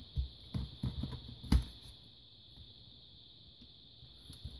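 A few sharp clicks and knocks of hard plastic and small parts being handled, as a laptop memory module is fitted. The loudest comes about a second and a half in. After that only a faint steady high hiss remains.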